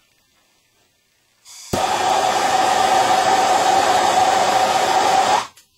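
Handheld gas soldering torch lit with a sharp pop and burning with a loud, steady hiss and a steady tone for about four seconds, then shut off, heating copper pipe fittings for sweat-soldering.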